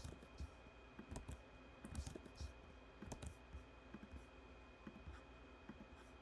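Faint, irregular computer clicks, roughly one a second, from a mouse and keyboard, over a faint steady high-pitched tone.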